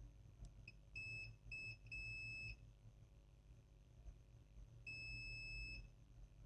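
Digital multimeter's continuity buzzer beeping as the probes touch the board's capacitor pads: a brief blip, three short high-pitched beeps, then one longer beep. The beep means the rail is still shorted even with the capacitors removed.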